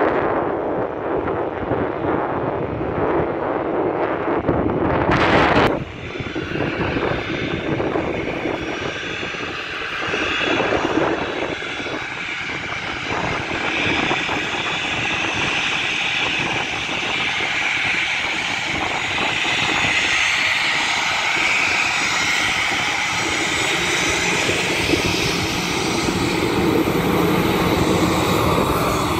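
Boeing 737 jet engines at taxi power: a steady rumble with a high whine that grows louder as the airliner rolls close by. A heavier rumble in the first few seconds drops off suddenly about six seconds in.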